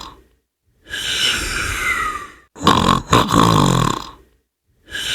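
Cartoon-style snoring: a buzzing snore on the in-breath, then a breathy out-breath with a whistle that falls in pitch. The two alternate with short silences between them, in near-identical cycles about every 3.7 seconds.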